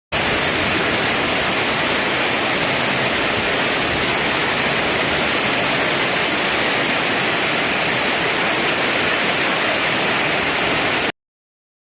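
Steady, even rushing hiss of heavy rain, cutting off abruptly about eleven seconds in.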